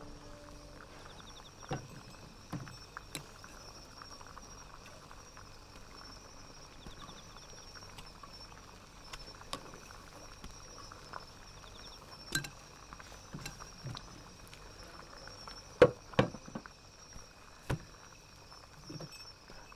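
Scattered light clinks and knocks of an iron pot's lid, serving utensils and dishes being handled, the loudest two close together about 16 s in, over a faint steady high hiss.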